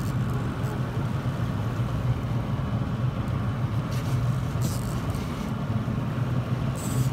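Boat engine running steadily at trolling speed, a low even drone, with a few short hissing rasps about four to five seconds in and again near the end.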